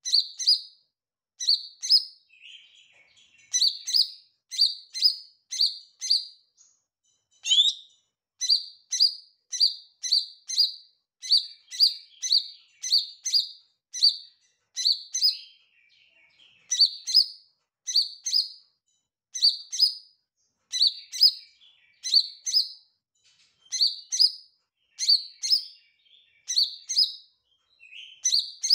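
Caged male leafbird (cucak ijo mini) singing a long, repetitive string of sharp, high chirped notes, about two a second, in runs of three to five with short pauses and some soft twittering in between.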